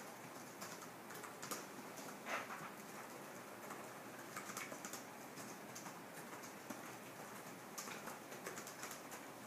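Faint keyboard typing: irregular clicks over a steady room hiss, with one louder tap a little over two seconds in.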